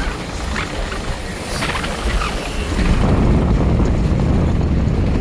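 Wind buffeting the microphone, a heavy rumble that grows louder about three seconds in.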